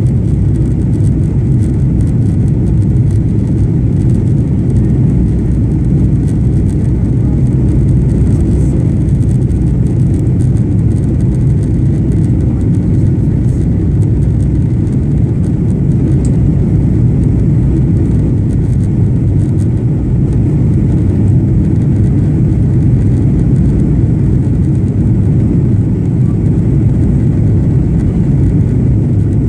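Steady cabin roar of a Boeing 737-900 on approach with its flaps extended: engine and airflow noise heard inside the cabin, mostly a low, even rumble.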